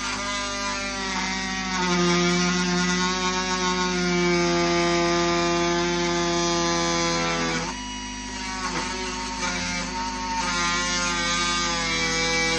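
Oscillating multi-tool buzzing hard as its blade cuts through a drywall screw. The pitch sags a little under load, eases off about eight seconds in, picks up again and stops at the end.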